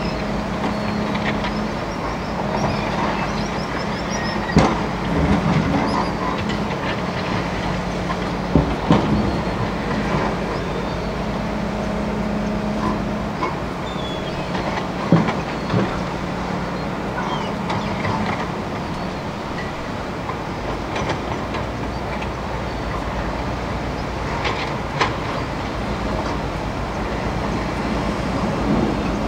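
Tracked hydraulic excavator's diesel engine running steadily while it works in a river, with a handful of sharp metallic clanks and knocks from the machine, over the constant rush of river water around its tracks.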